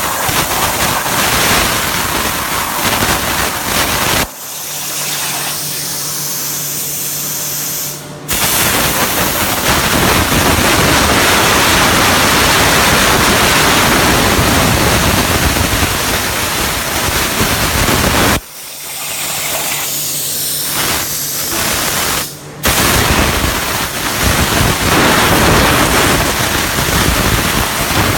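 CNC plasma cutter cutting metal: a loud, steady hissing arc that cuts off twice for about four seconds each, about four seconds in and again past halfway, leaving a quieter steady hum.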